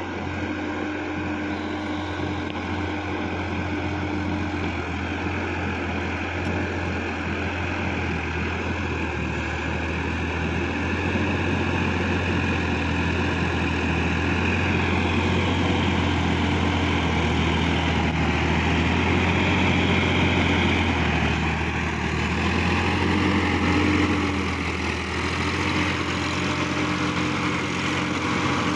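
Sonalika DI-50 RX Supreme tractor's diesel engine running steadily as the tractor drives closer, growing louder as it nears.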